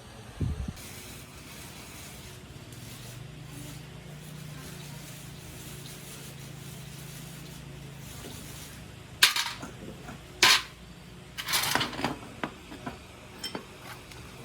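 Metal objects clinking and clanking: a handful of sharp strikes in the second half, the last ones quicker and fainter.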